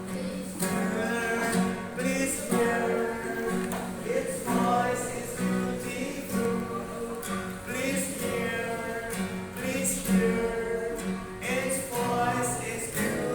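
A song sung to strummed acoustic guitar.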